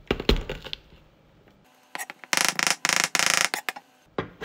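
Garlic cloves being crushed under the flat of a kitchen knife on a wooden cutting board: a quick cluster of cracks and knocks, then about two seconds in a louder run of rapid knife-on-board clatter and scraping lasting about two seconds.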